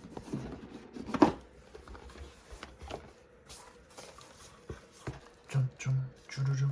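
Scattered clicks and taps from a Keychron mechanical keyboard being handled, with one sharp knock about a second in. Short low held notes come in near the end.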